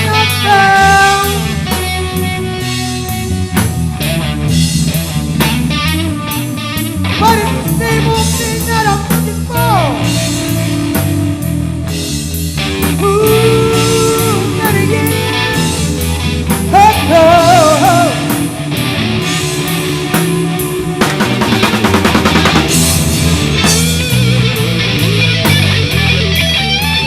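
Blues-rock jam by an electric guitar, bass and drum kit: the guitar plays a lead solo of held, bending notes with vibrato over a steady bass line and drums.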